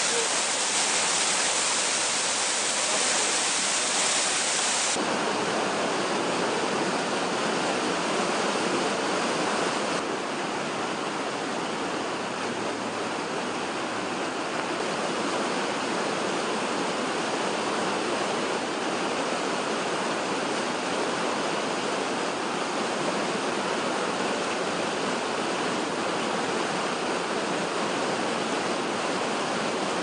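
Rushing water: a steady wash of noise, changing abruptly in tone about five and again about ten seconds in.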